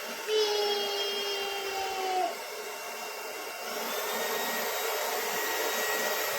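Lubluelu cordless stick vacuum with a brushless motor running, a steady whine over airflow hiss. About two seconds in, a lower tone drops away, and a higher, thinner whine sets in just before the middle.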